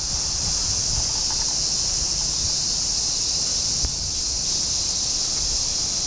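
Chorus of cicadas buzzing in a steady, unbroken high-pitched drone, with a low rumble underneath.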